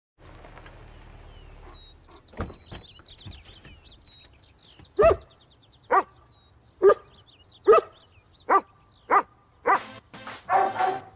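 A dog barking in single barks, about one a second, starting about five seconds in and coming faster near the end. Before the barks, faint high-pitched chirping.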